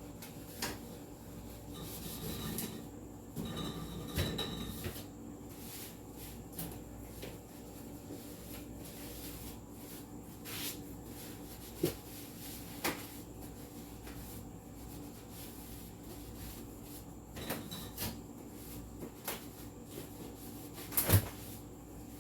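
Scattered light knocks and clunks of kitchen items being handled and set down, with a sharper double knock near the end.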